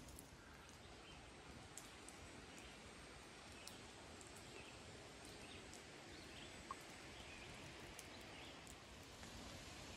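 Near silence: quiet forest ambience with faint, scattered bird chirps over a low steady hiss.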